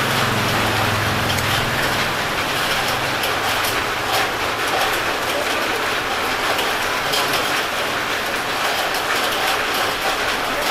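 Steady street noise with passing traffic: a low engine hum that fades over the first couple of seconds, over a constant hiss with scattered light clicks and taps.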